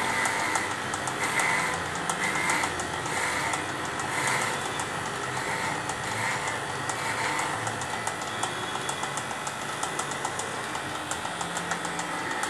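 Corded electric pet clipper running steadily as it shaves through a St. Bernard's thick, matted coat.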